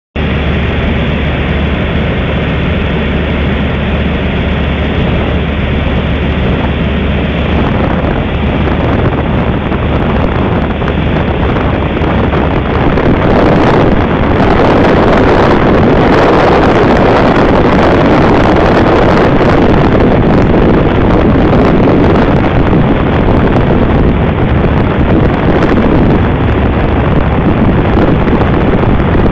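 Robin HR200 light aircraft in flight: a steady piston engine drone mixed with rushing air and wind on the microphone, getting louder about thirteen seconds in.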